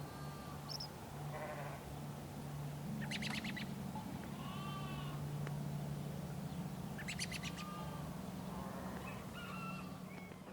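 Short animal calls, sheep- or goat-like bleats and bird chirps, over a steady low hum, with two brief trills about three and seven seconds in.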